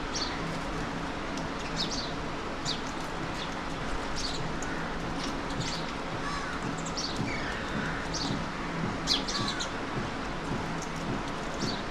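Birds calling: short, sharp, high calls repeated irregularly over a steady background hum.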